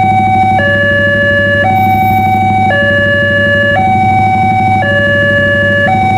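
Railway level-crossing warning alarm sounding from its loudspeaker: an electronic two-tone signal alternating high and low, each tone lasting about a second, warning that a train is approaching and the crossing is closed. A steady low rumble runs underneath.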